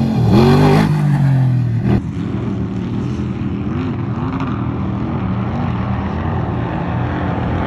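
Off-road race truck engine revving, its pitch rising and falling. An abrupt change about two seconds in switches to another, slightly quieter stretch of the engine running at varying revs.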